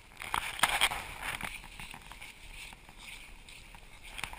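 Snow crunching and scuffing as dogs play in it: a cluster of sharp crunches in the first second and a half, then a softer steady rustle.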